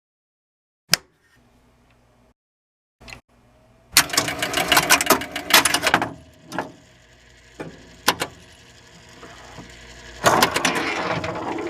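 Mechanical clicking and clattering: one sharp click about a second in, a dense run of clatter from about four to six seconds in, a few single clicks, then more clatter near the end.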